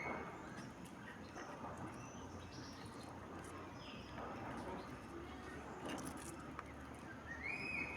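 Birds chirping in a few short, high calls, one rising then held near the end, over scattered faint clicks.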